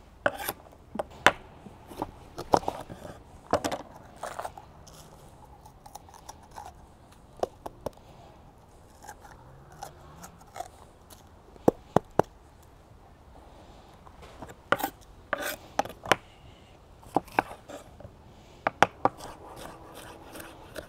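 Kitchen knife chopping a red bell pepper on a wooden cutting board: irregular sharp knocks of the blade striking the board, coming in clusters with a pause of several seconds in the middle.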